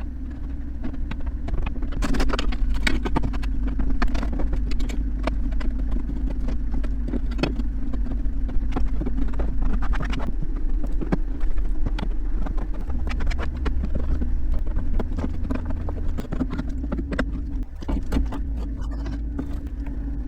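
An engine running steadily, with many rattles and knocks over it; its low note shifts a little about two thirds of the way through.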